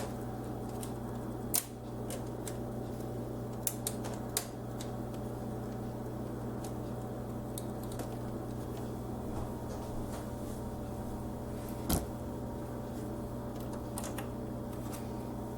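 A few light clicks and taps from a motherboard being handled and seated against the case's I/O shield, over a steady low hum. The sharpest tap comes about twelve seconds in.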